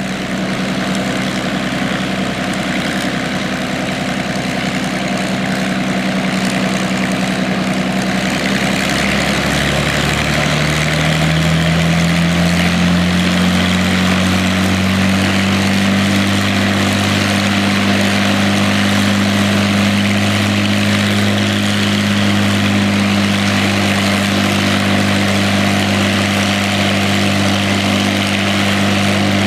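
IL-2 Sturmovik's Allison V-1710 V12 engine (taken from a P-38) running on the ground, propeller turning. It idles steadily, then about ten seconds in the engine speed rises smoothly and holds there.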